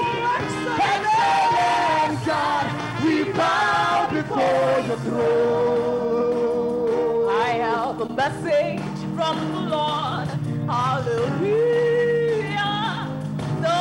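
Gospel choir singing a chorus with a lead singer out front and band accompaniment. The sung lines bend and glide over steady low backing notes.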